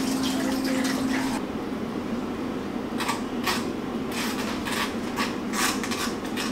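Kitchen tap running, shut off about a second and a half in. Then a string of irregular light knocks and scrapes as a plastic colander is tipped and scraped out over a bowl.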